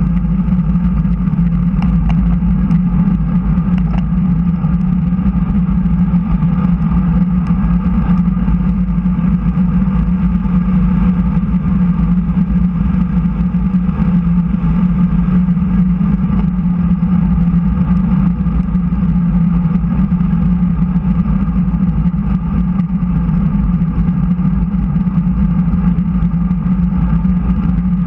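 Steady wind and tyre noise on a bike-mounted action camera as a road bicycle rolls at speed on the track's asphalt. It is a constant hum with no letup.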